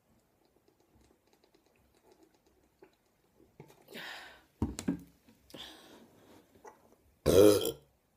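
Faint clicks and breaths, then a short, loud burp near the end.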